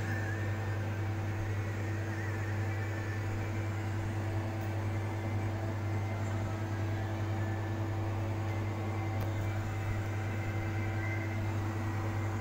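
Electric fan running: a steady low electrical hum with an even whir.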